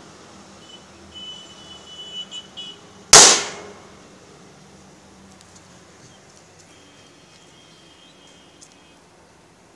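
Homemade lighter gun firing once, about three seconds in: a single sharp bang that dies away within half a second, just after a few quiet clicks.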